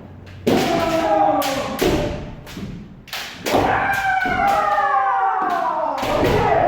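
Kendo sparring: sharp cracks of bamboo shinai strikes and stamping feet, several in quick succession. Between them come drawn-out kiai shouts, the longest and loudest starting about three and a half seconds in and falling in pitch.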